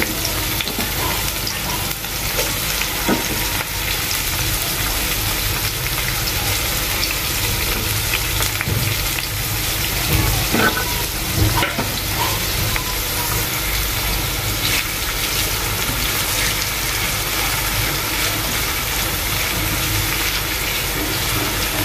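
Chopped onions and green chilies sizzling steadily in hot soybean oil in a frying pan. A few light knocks come about halfway through, and a silicone spatula stirs them near the end.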